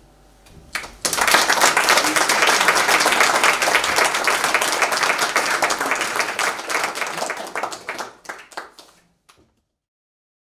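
Concert audience applauding, starting about a second in. The applause thins to a few scattered claps and cuts off abruptly near the end.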